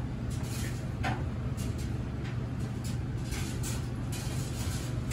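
Sneakers scuffing on the gym floor during side-to-side banded squats: several brief scrapes and a short rising squeak about a second in, over a steady low background hum.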